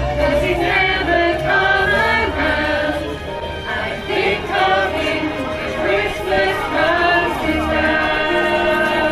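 A group of singers singing a Christmas carol, with music accompanying them.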